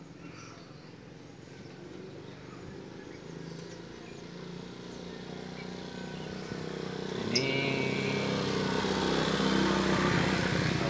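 Engine of a passing motor vehicle, growing steadily louder as it approaches, its pitch rising about two-thirds of the way through.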